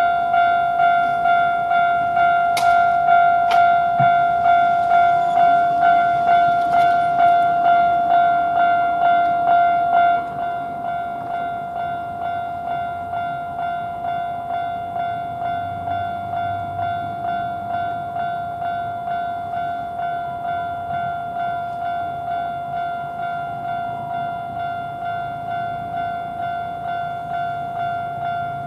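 Japanese level-crossing warning bell ringing its repeated electronic "kan-kan" tone, about two strikes a second. A few sharp clicks come a few seconds in, and the bell drops noticeably in volume about ten seconds in, then keeps ringing steadily at the lower level.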